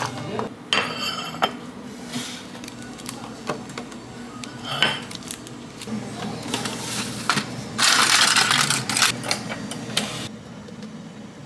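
Dishes and utensils clinking and knocking on a counter, with a loud rushing hiss lasting about two and a half seconds near the end that stops abruptly.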